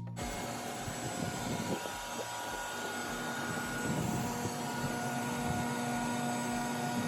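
Electric woodworking power tool running steadily, a motor whine over a loud rush of noise, starting abruptly.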